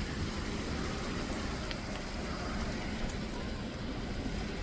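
Steady rain falling outside, an even hiss with a few faint drip clicks.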